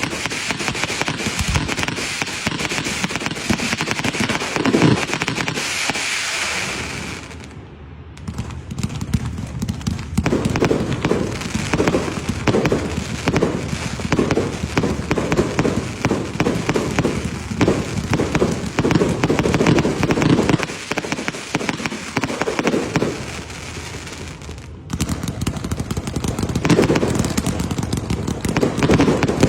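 Fireworks and firecrackers going off in a dense, rapid run of pops and crackles. The run eases off about eight seconds in, then picks up again heavily a couple of seconds later.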